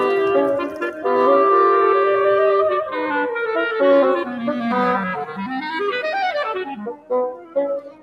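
Woodwind trio of flute, clarinet and bassoon playing chamber music together. Held notes for the first few seconds, then shorter detached notes with brief breaks near the end.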